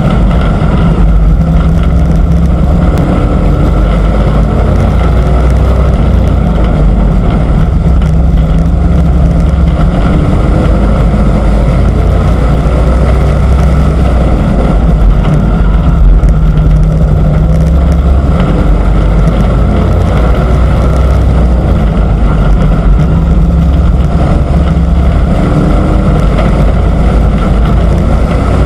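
Race truck engine running hard at racing speed, picked up loud by an onboard camera, its pitch repeatedly rising and falling as the truck laps the oval.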